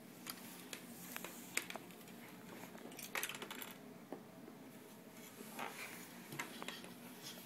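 Faint clicks and light clatter of plastic Lego models being handled and set down on a wooden table, with a small cluster of clicks about three seconds in.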